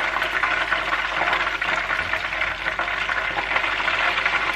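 Hot oil sizzling and crackling steadily around chicken wings deep-frying in a frying pan, during the first of two fries that drives the moisture out of the chicken.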